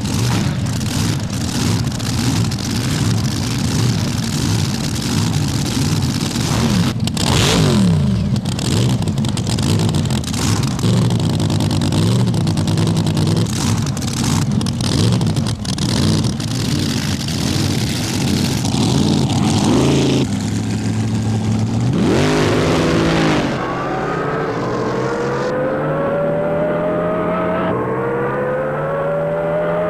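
Drag boat racing engine running loud and rough, its pitch rising and falling as it revs; in the last few seconds its pitch climbs steadily.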